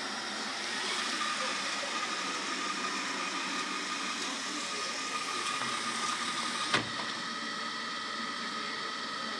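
Robot vacuum cleaner running steadily, its motor giving a thin high whine over a noisy hum, with one sharp knock about two-thirds of the way through.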